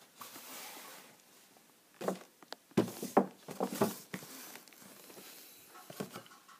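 Handling noise from small plastic figure accessories (a spare face and a swap-in hand) being picked up: rustling and a few light clicks and knocks.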